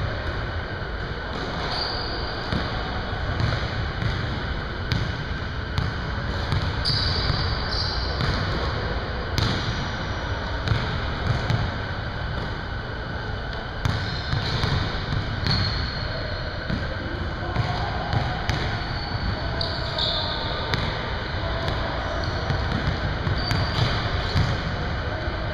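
Basketballs bouncing on a hardwood gym floor, with dribbles and thuds coming irregularly throughout, over the steady hum of a large gym. Short high squeaks come now and then.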